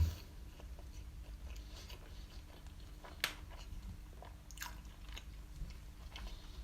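Close-up chewing and biting of a mouthful of doner kebab meat, cheese and chips, with scattered wet mouth clicks, two sharper ones about three and four and a half seconds in.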